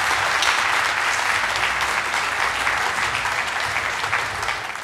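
Audience applauding steadily, the clapping easing off slightly near the end.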